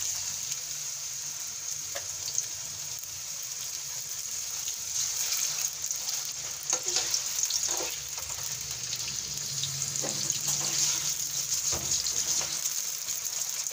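Raw chicken pieces sizzling in hot oil in an aluminium karahi, with a metal slotted spoon scraping and clinking against the pan as the pieces are turned. The sizzling grows louder about five seconds in.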